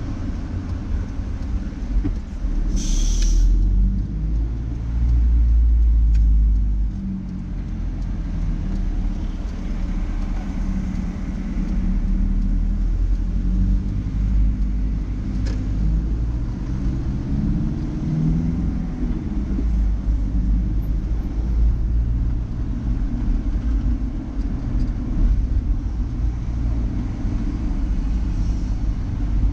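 Car engine and tyre rumble heard from inside the car as it drives through city traffic, with the engine note shifting as it speeds up and slows down. A brief sharp high-pitched sound cuts in about three seconds in.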